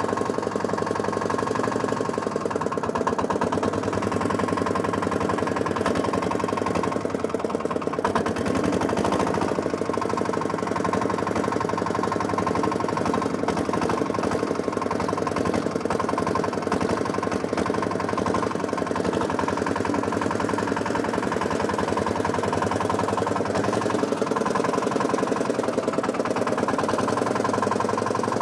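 Small rope-start engine of a homemade tractor running steadily while the tractor is driven, with a rapid, even chugging.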